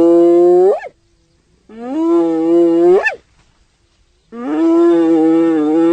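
Hyena calling: three long calls in a row, each held on a steady pitch and sweeping sharply upward at the end.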